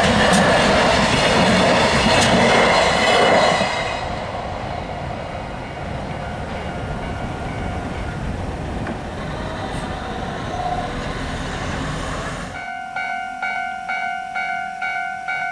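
A Hanawa Line train passing close by, wheels clicking over the rail joints, then dropping to a quieter steady rumble as it draws away. About thirteen seconds in, a Japanese level-crossing alarm starts ringing, an electronic 'kan-kan' tone repeating about twice a second.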